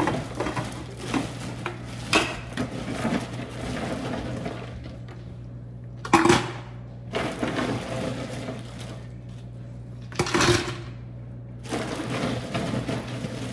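Ice and hard plastic clattering and knocking as a large plastic drink dispenser is handled and its lid worked on, with two sharper knocks about six and ten seconds in. A steady low hum runs underneath.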